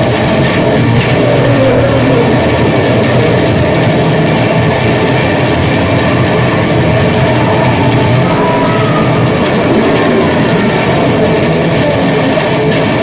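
Grind/noise music: a continuous, loud wall of harsh distorted noise with no clear beat.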